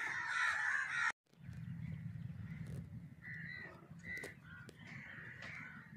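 Crows cawing, many at once until a sudden cut about a second in. After the cut come scattered single caws over a low steady rumble.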